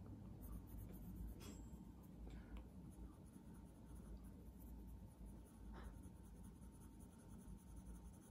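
Coloured pencil shading on drawing paper at medium pressure: a faint, soft scratching of the lead over the paper, with a few light ticks.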